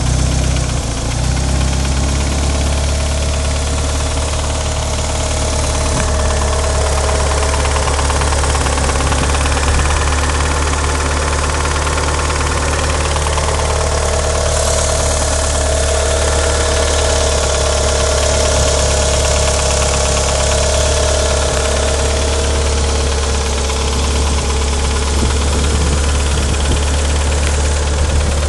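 1994 Mitsubishi Eclipse GS-T's 4G63 turbo four-cylinder engine idling steadily with a pretty noticeable clicking from the engine bay, which the owner suspects is lifter tick.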